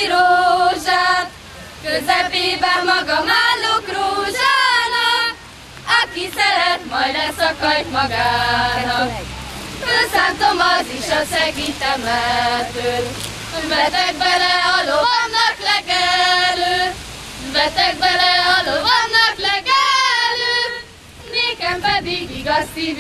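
A group of girls and women singing a Hungarian folk song together for a circle dance, in phrases with short breaks between them.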